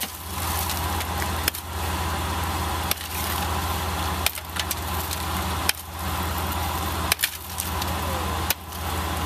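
A long-handled steel tool chopping into ice, a sharp strike about every second and a half, seven times in all, over the steady hum of an idling vehicle engine.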